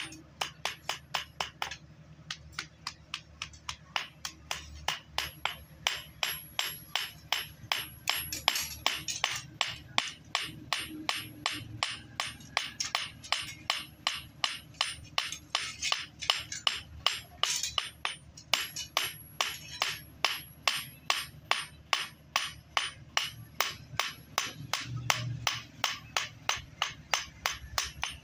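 Hand hammer striking a steel knife blade on an anvil block in rapid, even blows, about two to three a second, with short pauses about 2 s and 18 s in. The blade's edge is being hammered out to sharpen a dull knife.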